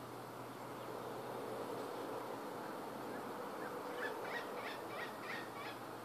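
Pileated woodpecker calling: a quick series of about eight short, repeated notes, starting a little past halfway through.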